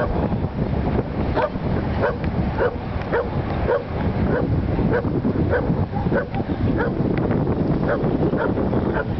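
A Welsh Corgi barking in short, quick yaps, about two a second, over steady wind noise on the microphone.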